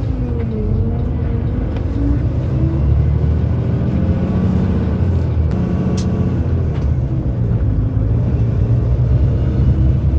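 Truck engine running as the truck drives along the road, a steady low rumble whose pitch shifts a little, with one sharp click about six seconds in.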